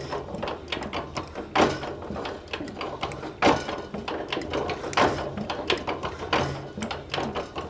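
Wrench tightening the fuel-line nut on a diesel injector: a run of metallic clicks and clinks, with louder knocks about every second and a half.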